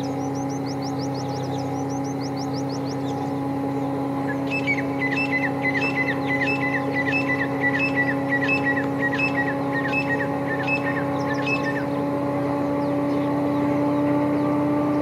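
EMD WDP4D diesel locomotive's two-stroke V16 engine running under power, a steady drone that slowly rises in pitch and grows louder as the locomotive approaches. A bird calls repeatedly, about two short notes a second, from about four seconds in until about twelve seconds, after a quick high twittering in the first three seconds.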